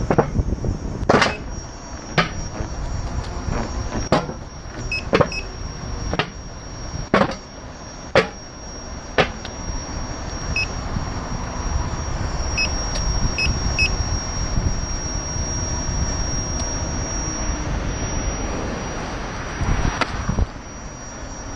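Gotway MCM4 electric unicycle riding, heard from a camera mounted low on it: a steady rumble of tyre and wind noise with a thin high whine, broken by sharp knocks about once a second in the first half and again near the end. A few faint short beeps come in the middle.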